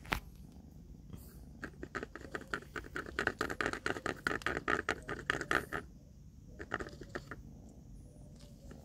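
Kittens licking and chewing food from a small plastic tub: a fast run of wet clicks and smacks that stops about six seconds in, then a few more.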